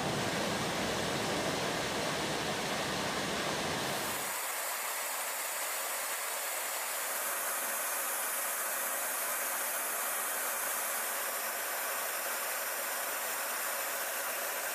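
Steady rushing roar of jet aircraft noise and airflow, heard from aboard an aircraft in flight. About four seconds in it switches abruptly to a thinner, higher hiss with the deep part gone.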